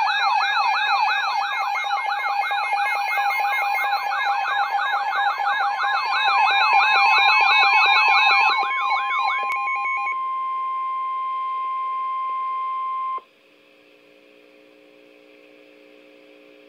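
An emergency-alert siren sweeping up and down rapidly, about three rises a second, layered with beeping alarm tones. About ten seconds in only a single steady alert tone is left, the weather-radio warning tone; it cuts off abruptly about three seconds later, leaving a faint low hum.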